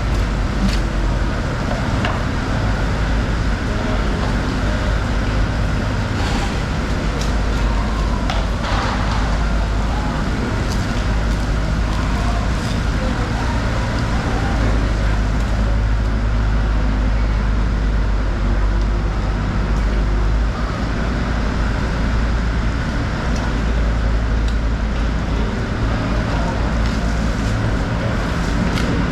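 Steady, loud background din with a low hum underneath and a few faint clicks scattered through it.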